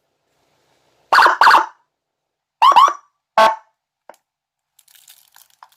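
Whelen Alpha electronic siren amplifier sounding through a TS300N siren speaker in short blips. There are two blasts about a second in, two quick rising-and-falling chirps near the middle, and one more short blast just after. Faint clicks follow near the end.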